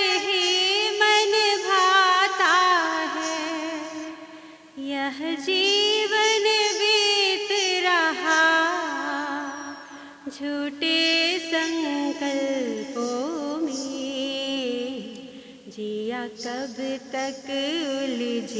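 A woman singing a Hindi devotional song (bhajan) solo, holding long notes with ornamented turns, with short breaks between phrases about four and ten seconds in.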